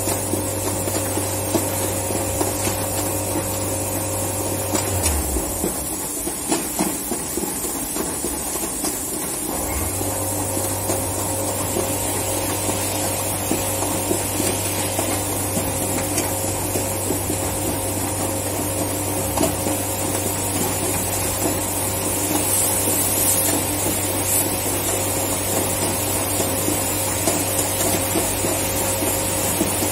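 Plastics-plant machinery running with a steady low hum, a higher whine and a hiss. The low hum cuts out about five seconds in and comes back about five seconds later, with a few light clicks in between.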